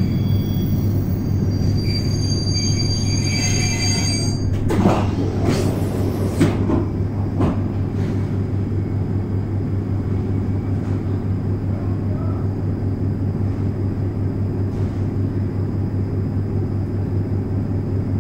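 Steady low electrical hum of a stationary 1970s ASEA-built C10 electric multiple unit. Thin high-pitched tones sound until about four and a half seconds in, and a few sharp knocks follow between about five and seven and a half seconds in.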